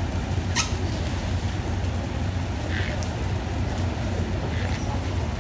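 Steady low rumble of an idling diesel train standing at the platform, with a sharp click about half a second in.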